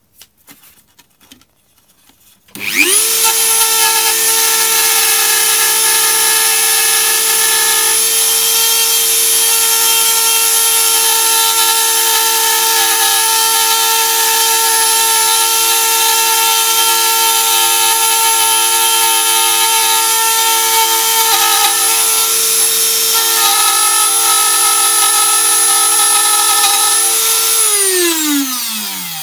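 A few light clicks, then a Dremel rotary tool with a routing bit spins up to full speed in under a second and runs steadily with a high whine, routing out a homebrew circuit board at about 25,000 rpm. Near the end it switches off and winds down in falling pitch.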